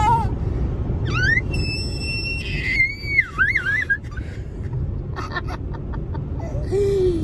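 A toddler squealing with delight in high-pitched gliding and wobbling shrieks, mostly in the first half, over the steady low rumble of a moving car. A short lower voice slides down near the end.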